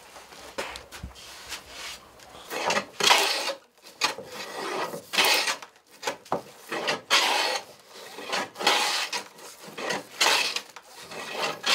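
Hand plane shaving along the rail of a wooden window frame: repeated rasping push strokes, about one a second, starting a couple of seconds in.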